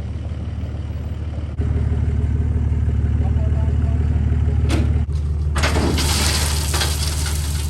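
A motor vehicle's engine running steadily with a low hum, getting louder about one and a half seconds in, joined by a broad rushing noise from about five and a half seconds in.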